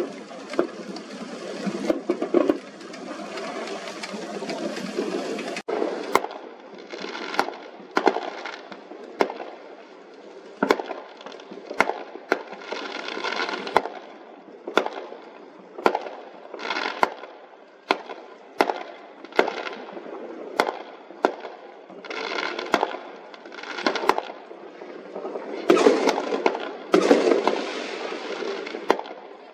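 Aerial fireworks going off. Dense crackling for the first few seconds stops abruptly, then a long string of sharp bangs follows, a little under one a second, over a steady background hiss.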